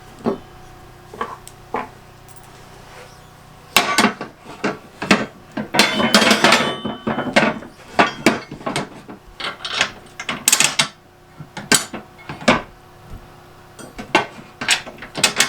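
Metal clinks and knocks of steel plow brackets, bolts and nuts being fitted and handled during assembly of an ATV snow plow, irregular and sparse at first, then busy from about four seconds in.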